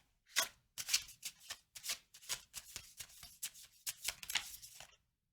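A deck of tarot cards being shuffled by hand: a quick run of crisp papery flicks and slaps that stops suddenly near the end.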